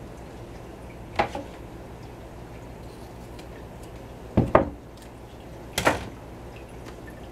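Short clattering handling noises of a duct tape roll and scissors on a laminate kitchen countertop: one about a second in, a quick double clatter past the middle, and another near the end, over a low steady hum.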